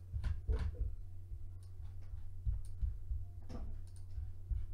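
Scattered computer mouse clicks and a few dull desk knocks over a steady low hum.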